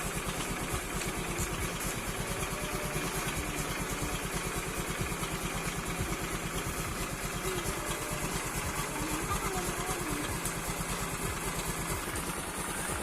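Honda Vario scooter's single-cylinder engine idling steadily with an even pulse.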